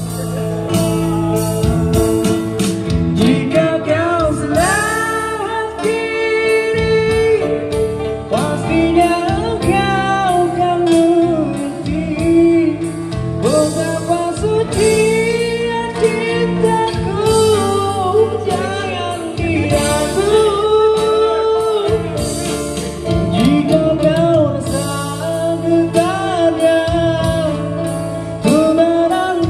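Live band music: a male singer sings a Malay pop ballad through an amplified microphone, backed by strummed acoustic guitar, electric guitar and a drum kit keeping a steady beat.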